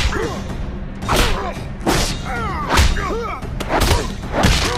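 Heavy punch impacts in a cartoon fistfight, six blows in about five seconds, each followed by a short grunt, over a film score.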